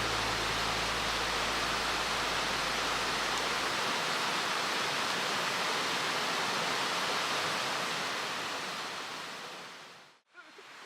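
Steady rush of a mountain stream's flowing water, an even hiss that fades out near the end. The last low notes of a music track die away in the first few seconds.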